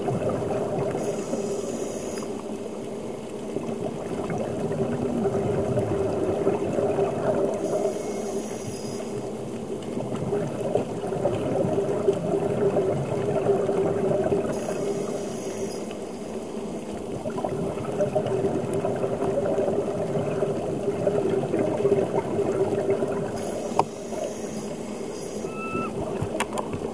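Underwater sound of a scuba diver breathing through a regulator: four hissing breaths about seven seconds apart, with bubbling and gurgling water between them, over a steady low hum.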